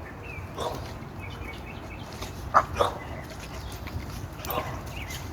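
American Bully dogs play-fighting, a puppy with its mother, giving a few short yips and barks, the loudest two close together about two and a half seconds in.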